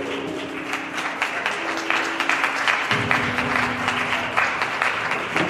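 Audience applauding over music that plays long held notes.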